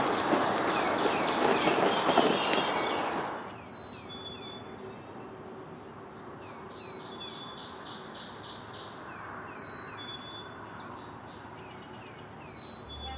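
Songbirds singing, with repeated high chirps and trills. For the first three and a half seconds a loud rustling noise covers them, then stops suddenly, leaving the birdsong clear over a faint background hiss.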